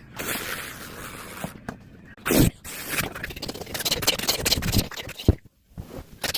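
A string of odd scraping and hissing noises, with a short loud falling tone about two and a half seconds in and a brief pause near the end.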